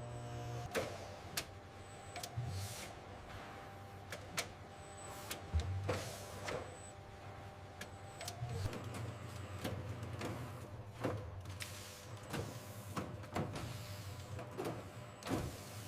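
Automated patty grill machinery running: a steady motor hum and whir with frequent mechanical clicks and clacks and short hisses.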